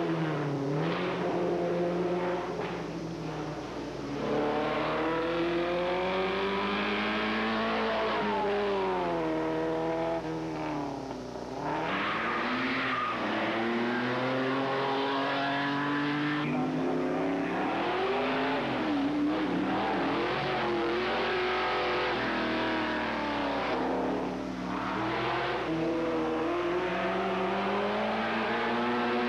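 Race car engines running hard up a mountain hillclimb course, the pitch climbing and then falling back several times as the cars accelerate, shift and slow for the bends.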